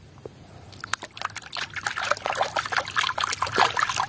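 Muddy water splashing and sloshing in a plastic basin as a hand swishes and scrubs a plastic toy in it, starting about a second in and going on as irregular, quick spatters.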